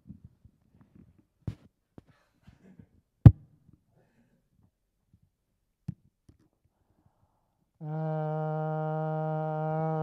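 A few scattered clicks and knocks, the loudest about three seconds in, then near the end a man starts humming one steady low note through a respirator mask into a handheld microphone, rich in overtones.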